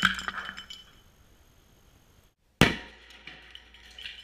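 Sharp bang of a wooden birdhouse bursting from heated, pressurized CO2, fading with scattered small clatters of debris. After a brief break, a second identical sharp bang follows about two and a half seconds in.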